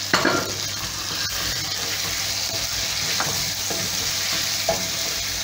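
Tomato base sizzling in a frying pan as potato chunks are stirred through it with a wooden spoon, with a few light knocks of the spoon against the pan.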